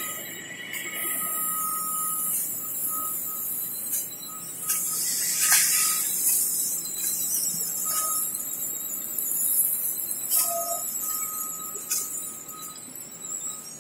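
Paperboard production line running: a steady mechanical hiss with a thin high squeal that comes and goes, and a few sharp clicks.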